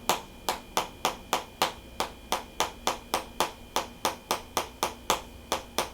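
A chiropractic hammer (mallet) tapping on the patient's body in a steady, even rhythm of about three light taps a second.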